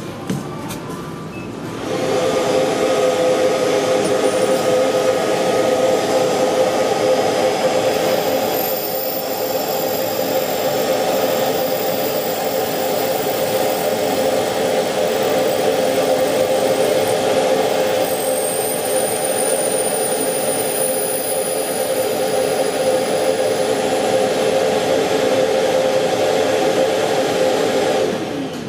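Automatic key-cutting machine's cutter motor running steadily as it cuts a key blank, with a short click just at the start; the whir starts about two seconds in, eases slightly for a stretch in the middle, and stops near the end.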